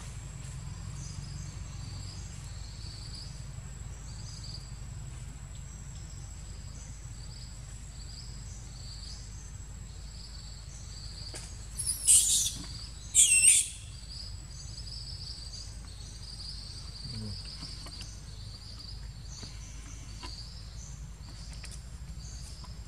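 A baby macaque gives two sharp, high-pitched screams about a second apart, about halfway through, in a tussle over nursing at its mother's teat. Insects chirp steadily and rhythmically throughout.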